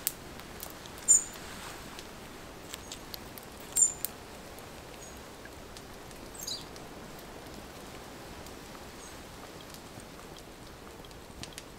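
Small wood-burning stove's fire crackling faintly over a steady hiss, with scattered sharp pops. The two loudest come about a second and about four seconds in.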